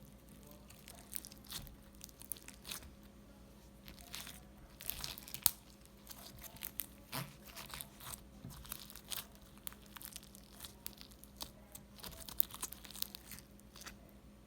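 Crunchy homemade slime mixed with fruit chips and small white bits being squished and pulled by hand: irregular crackling and popping, coming in thicker bursts twice.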